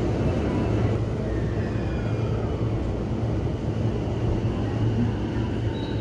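Saikyo Line electric commuter train running on the tracks at the station: a steady low rumble with faint electric motor whine above it.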